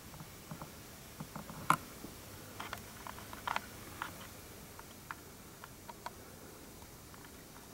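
Light handling noise: scattered small clicks and taps over a quiet room, with one sharper click a little under two seconds in and a small cluster of ticks around three to four seconds in.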